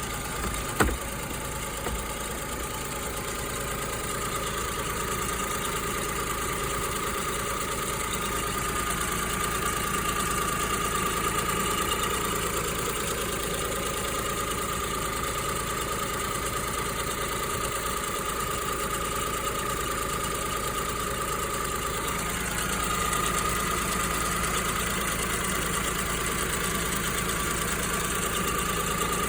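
Kei car engine running steadily at idle, half a year after a chemical treatment for a clanging knock that the owner suspects came from coolant getting into a cylinder and burning abnormally. One short knock sounds about a second in.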